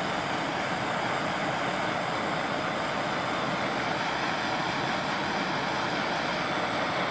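Handheld gas torch flame hissing steadily as it heats a gel-filled heat-shrink wire connector.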